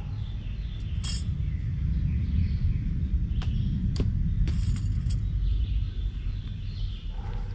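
A few sharp metallic clinks from a hand tool worked against the driveway edge while landscape fabric is laid, over a steady low rumble; birds chirp faintly.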